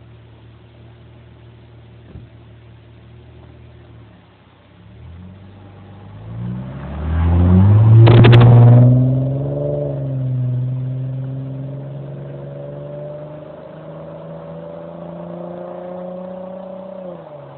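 Dodge Intrepid V6 through a Flowmaster exhaust, idling and then revved: the note climbs to a loud peak about halfway through, drops briefly, then holds higher with a slow rise before falling back near the end.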